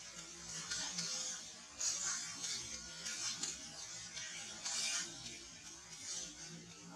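Dry fallen leaves rustling and crunching in short, uneven bursts as macaques walk and forage over the leaf litter.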